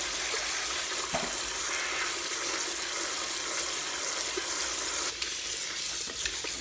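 Cold tap water running in a steady hiss onto cooked, diced nopales in a plastic colander, rinsing them; the flow stops about five seconds in.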